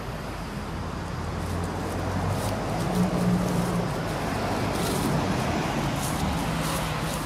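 A motor vehicle's engine hum passing nearby, building to its loudest about three seconds in and then easing off. Faint scattered clicks sound over it.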